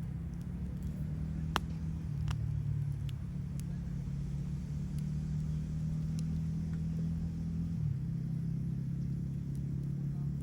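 Campfire crackling, with a dozen or so sharp, irregular pops from the burning wood, over a steady low hum whose pitch shifts about two seconds in and again near eight seconds.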